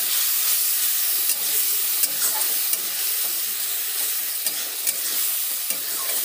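Onion, garlic and spice masala sizzling in oil in a metal kadhai as a spatula stirs and scrapes it round, with a few sharp clicks of the spatula against the pan. The masala is being fried down.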